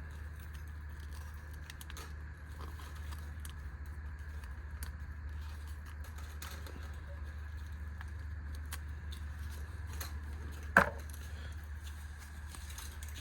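Small metal clicks of a keychain nail-clipper multi-tool being handled and its little tools folded, over a steady low hum, with one sharp, much louder snap about eleven seconds in.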